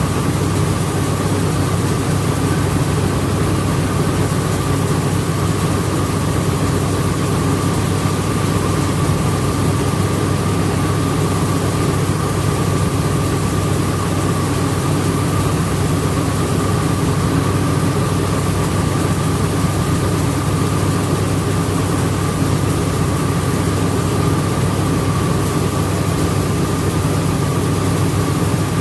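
Rice milling machinery running steadily: a loud, unbroken drone with a constant high whine over it.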